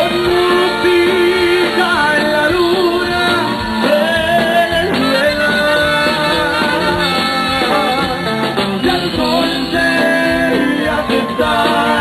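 A Tejano band playing live: a continuous melodic lead with vibrato over steady guitar and rhythm accompaniment, between sung verses.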